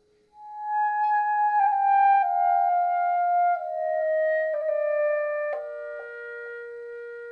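Clarinet played through a delay effect: after a brief hush, a slow line of held notes steps downward, each note lingering under the next.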